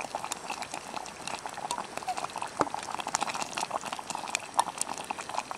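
A plastic spork stirring thick, simmering gravy with ground beef, peas and carrots in a small metal pot on an alcohol stove, with irregular clicks and taps of the spork against the pot and a soft bubbling underneath.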